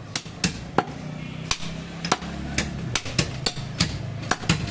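Meat cleaver chopping a goat leg into pieces through meat and bone on a wooden log chopping block: about a dozen sharp chops, unevenly spaced, a few each second.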